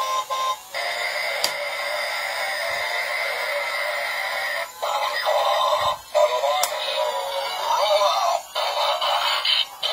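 Battery-powered transforming robot toy train playing electronic music and sound effects through its small built-in speaker, thin with no bass, broken by a few short gaps.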